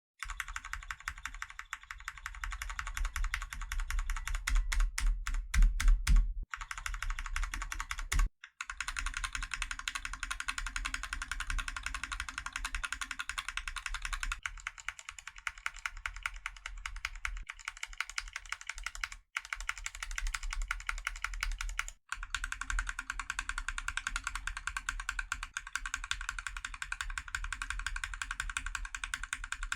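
Fast, continuous typing on mechanical keyboard switches: a dense clatter of keystrokes, broken by a few brief drop-outs and louder for a stretch near the start.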